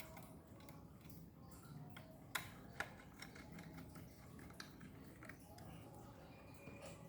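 Faint handling noise from small laptop parts and a screwdriver during an SSD install: two sharp clicks a little over two seconds in, then a few lighter ticks.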